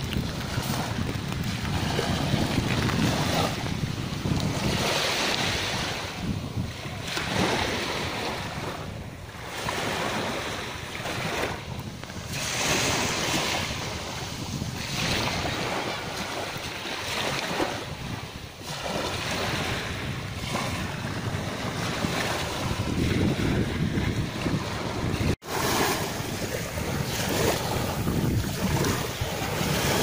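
Small waves breaking and washing up over a shelly sand shore, the wash swelling and easing as each wave comes in, with wind rumbling on the microphone.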